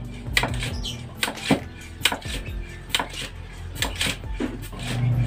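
Repeated short metallic clacks, roughly two a second, from a long metal rod or tube being worked up and down by hand, over a steady low hum.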